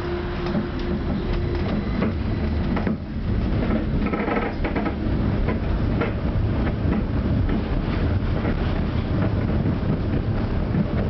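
Tram running along the track between stops: a steady low rumble of wheels on rails with frequent rattles and clicks, easing briefly about three seconds in.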